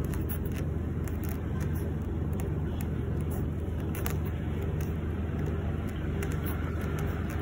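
Steady low rumble of background noise, unchanging throughout, with a few faint ticks above it.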